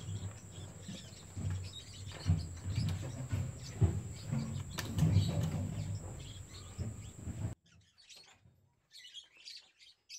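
Yellow lovebirds chirping and twittering in short notes, over a steady low rumble and a few sharp clicks. About seven and a half seconds in the background noise cuts off abruptly and the chirps carry on clearly.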